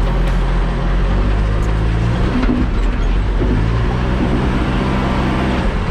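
Backhoe's diesel engine running steadily under way, its note shifting briefly about two seconds in.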